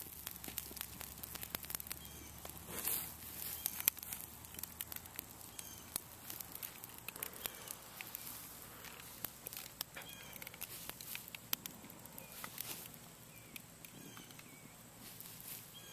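Small fire of dry leaves and twigs crackling, with many scattered sharp pops and a louder one about four seconds in.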